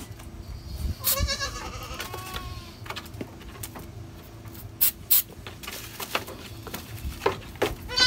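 A goat kid bleats once, a high call about a second and a half long starting about a second in. A few sharp knocks follow, two around five seconds in and two near the end.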